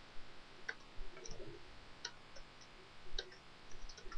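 Computer keyboard keys clicking faintly as text is typed: about ten scattered, uneven keystrokes.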